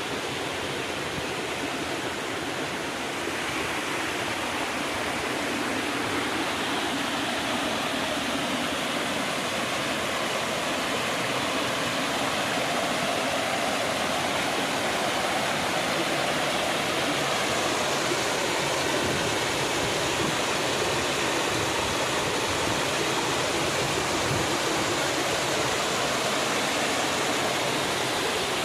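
Small waterfall splashing and rushing steadily into a pool, a continuous even wash of falling water.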